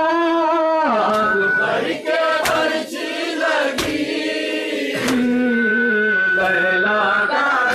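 Male voices chanting a nauha, a Muharram lament, in long held notes with vibrato, accompanied by sharp slaps about every 1.2 seconds, the rhythmic chest-beating (matam) of the mourners.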